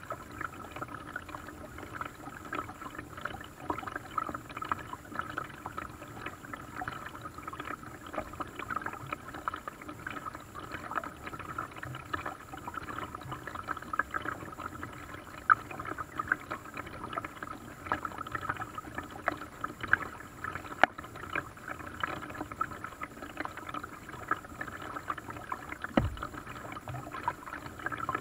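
Water lapping and splashing against the hull of a paddled small boat, with many small irregular splashes and ticks. There is one dull low thump near the end.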